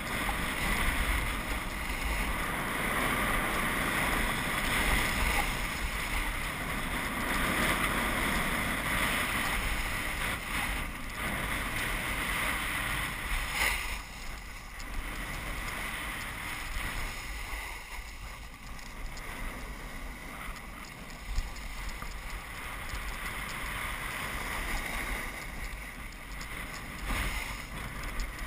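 Wind rushing over an action camera's microphone, mixed with the hiss and scrape of sliding on packed snow during a downhill run. It is louder in the first half and eases from about halfway.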